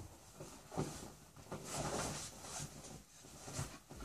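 A dog and a rooster scuffling on a leather couch: a few short knocks, and about halfway through a longer stretch of rustling and scraping against the leather.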